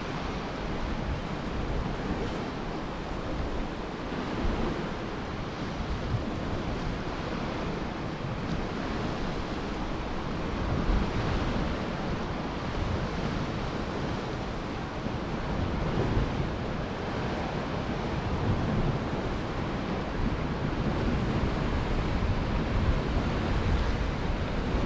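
Sea swell washing and breaking against the rocks below, a continuous rushing noise, with wind buffeting the microphone.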